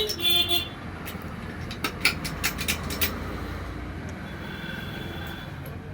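A steady low engine-like rumble, with a quick run of sharp metallic clicks about two to three seconds in.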